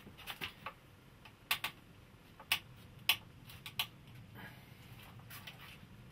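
Irregular sharp clicks and taps of a metal rod and wooden pieces being handled on a workbench, about a dozen in all, the loudest about one and a half, two and a half and three seconds in, over a faint low hum.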